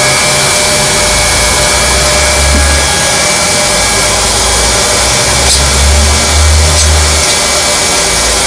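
Handheld hot-air plastic welder blowing steadily with an even rushing hiss and a thin fan whine, heat welding a seam of TPO roofing membrane.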